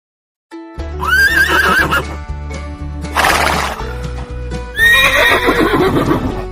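Horse neighing (whinnying) twice over music with a steady low beat. The first whinny comes about a second in, the longer second one near the end, with a short breathy burst between them.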